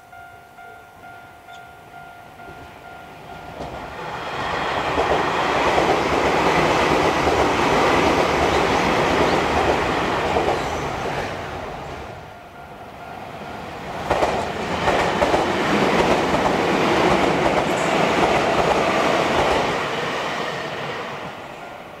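Level crossing warning bell ringing, then two Keio Inokashira Line electric trains passing over the crossing one after the other: the first from about four seconds in, the second starting about two seconds after the first fades.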